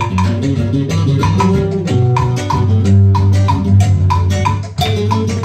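A band playing the instrumental intro of a Latin dance tune: bass, drum kit and hand percussion with a steady beat and sharp, woody percussion hits.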